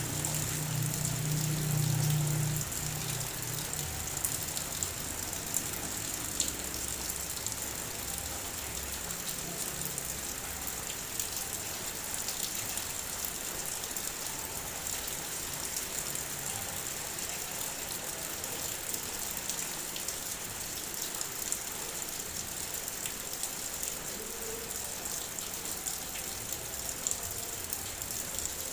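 Heavy rain pattering steadily on a car's body, with scattered sharper drop taps. A low rumble is loudest in the first couple of seconds, then fades out.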